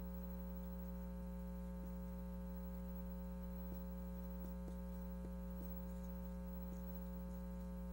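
Steady electrical mains hum, with a few faint ticks from a marker writing on a whiteboard in the middle.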